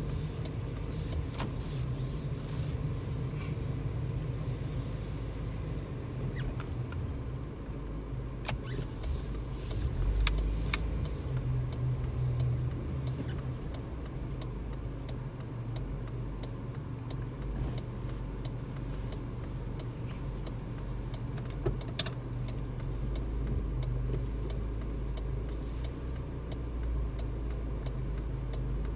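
Car's engine and cabin rumble heard from inside the car as it turns slowly and then stands at idle, with scattered small clicks and knocks in the cabin and one sharper knock about three quarters of the way through.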